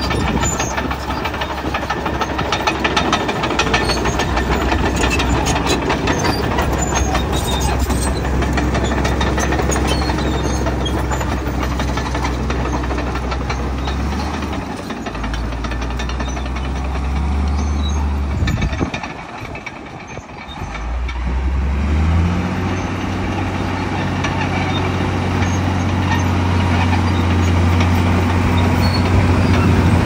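Komatsu D65E crawler bulldozer's diesel engine running under load as it pushes beach sand with its blade, with clicking and clanking from the steel tracks. About two-thirds of the way through, the engine sound drops away briefly. It then comes back stronger at a slightly higher steady pitch.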